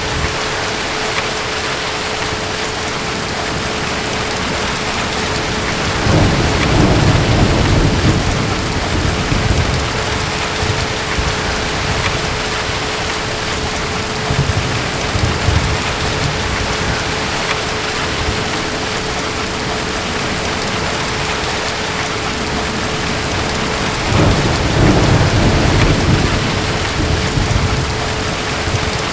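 Steady rain falling through a thunderstorm, with two low rolls of distant thunder, each lasting a few seconds: one about six seconds in and one near the end.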